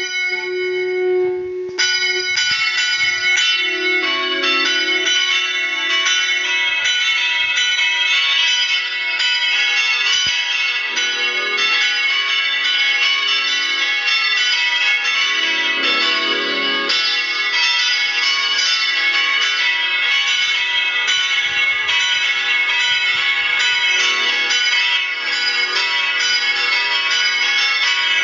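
Bells rung two by two in a continuous, rapid peal, with strikes overlapping so that the tones ring into one another.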